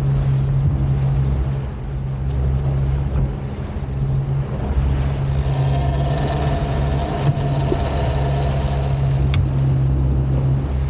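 Outboard motor of a 150 Montauk skiff running steadily at cruising speed, a low drone, with the rush of wake and wind over the hull; a hiss grows louder from about halfway through until near the end.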